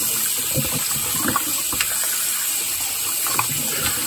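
Kitchen faucet running in a steady stream into a sink as raw chicken drumsticks are rinsed by hand, with a few brief splashes and light knocks as the pieces are moved under the water.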